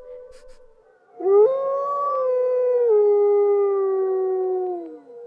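A long wolf-like howl. It starts with a sharp upward swoop about a second in, holds its pitch, drops a step midway and trails off downward near the end.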